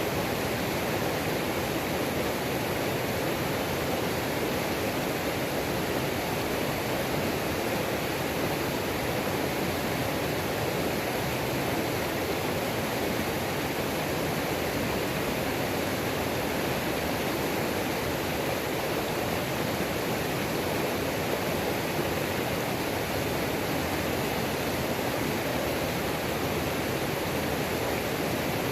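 Waterfall on a mountain creek: water pouring and splashing in a steady, unbroken rush.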